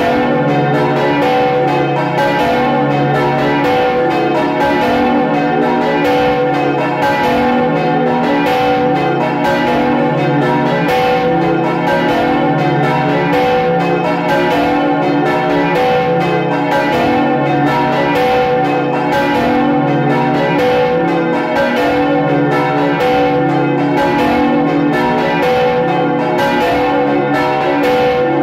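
Five church bells, from a small bell up to the big main bell, swinging and ringing together in a full peal, heard close up inside the belfry. Strikes from the different bells overlap in a continuous, unbroken clangour of layered ringing tones.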